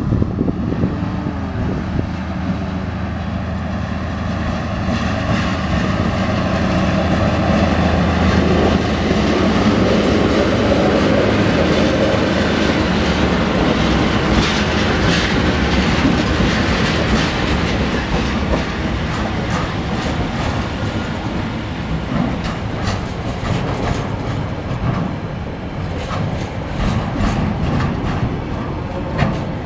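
Three TasRail TR-class diesel locomotives hauling a container freight train approach and pass close by, their engines running loud with a steady drone that peaks as they go past. Then the container wagons roll by with a rhythmic clickety-clack of wheels over the rail joints.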